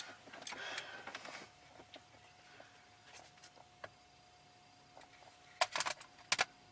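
Scattered clicks and light taps of objects being handled, with a quick cluster of louder clicks about five and a half to six and a half seconds in, over a faint steady tone.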